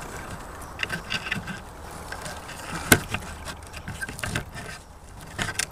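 Tree-root lashing being wrapped and pulled tight around the joint of hardwood poles: handling rustles and small clicks, with one sharp knock about three seconds in.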